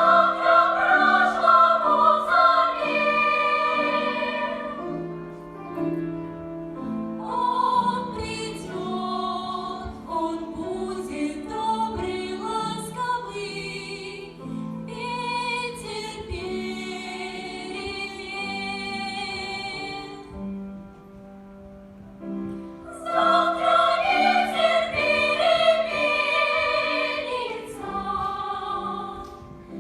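Music: choral singing with instrumental accompaniment, in long held notes. It is louder in the opening seconds and again near the end, and softer in between.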